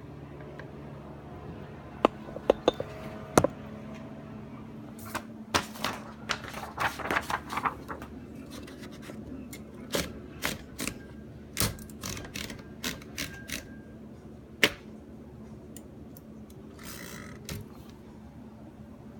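1936 Smith Corona Silent typewriter being worked by hand: irregular clicks and knocks from its keys and mechanism, thickest between about five and eight seconds in, with a short rasp near the end.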